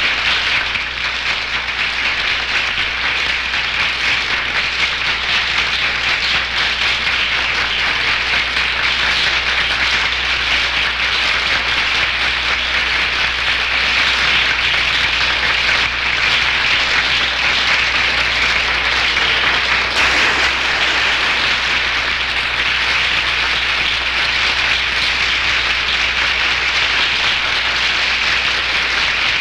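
Large audience applauding steadily, a dense continuous clapping without breaks.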